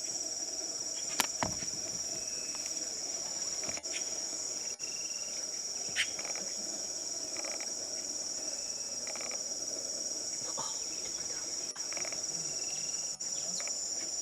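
Steady, high-pitched chorus of insects, with a few sharp clicks about a second in and again around six seconds.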